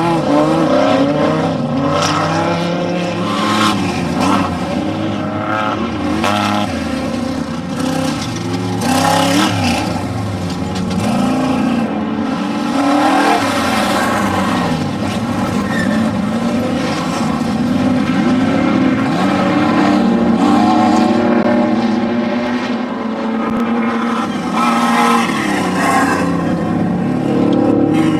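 Off-road desert race vehicle engines revving hard as the vehicles race past, several engine notes rising and falling in pitch and overlapping, with tyre and gravel noise underneath.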